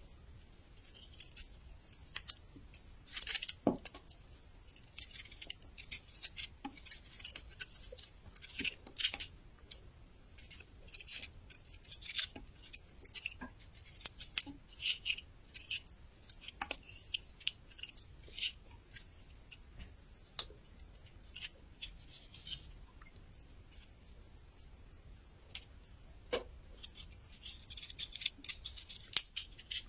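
Crisp, crackly crunching and chewing of raw young ginger, in many irregular short crunches with brief pauses.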